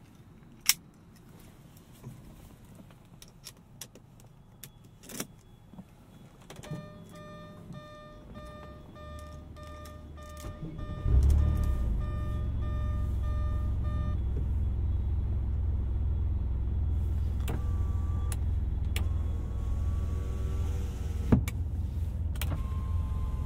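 A few sharp clicks and a repeating electronic warning tone. Then, about eleven seconds in, the 1997 Porsche 993 Twin Turbo's air-cooled twin-turbo flat-six is cranked and fires with a loud burst, settling into a steady low idle.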